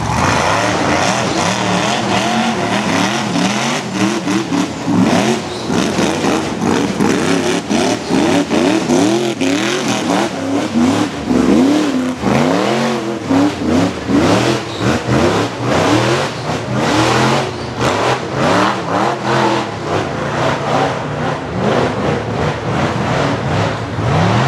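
Off-road race buggy engines revving hard, the pitch rising and falling over and over as the buggies work over rough, rocky terrain.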